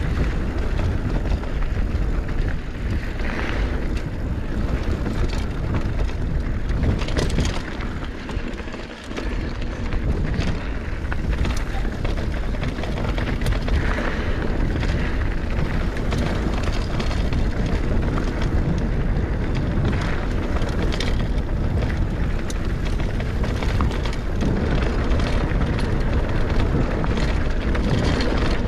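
Rushing wind on the microphone and a mountain bike's tyres rolling over dirt singletrack on a fast downhill run, with occasional clicks and clatters from the bike over bumps. The rush dips briefly about eight seconds in.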